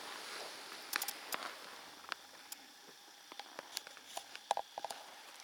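Faint footsteps crunching on snow-covered lake ice: a few irregular crunches and clicks over a light hiss, the sharpest cluster about four and a half seconds in.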